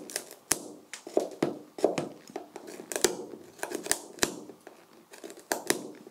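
Small screwdriver tip scraping and picking at a fibreglass bonnet: irregular sharp clicks and short scratches as flakes of loose paint and gel coat are chipped off the polyester underneath.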